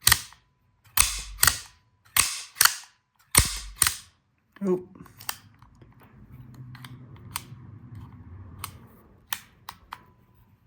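CobraTec out-the-front automatic knife firing its blade out and snapping it back in, a loud sharp snap each way, in quick pairs four times; then a few fainter clicks and handling of the knife. The freshly oiled mechanism is cycling fully again.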